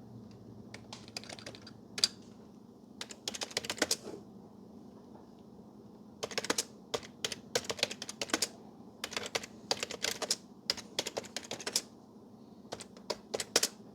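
Typing on a computer keyboard: quick runs of key clicks in several bursts with short pauses between them, over a faint steady hum.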